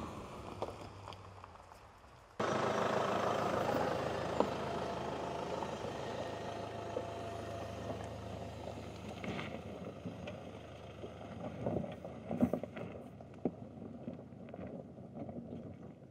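2020 Land Rover Discovery Sport driving slowly over a stony dirt track: engine running under a steady rush of tyre noise, with tyres crunching and popping on loose stones. The sound comes in suddenly about two and a half seconds in and fades slowly as the SUV moves away.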